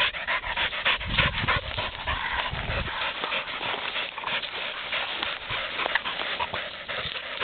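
A dog panting hard in a fast, even rhythm of quick breaths, with a low rumble between about one and three seconds in.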